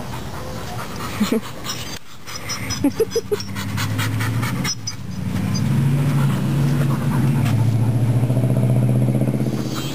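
A dog panting quickly, with a low, steady engine hum from a vehicle building up about halfway through and becoming the loudest sound.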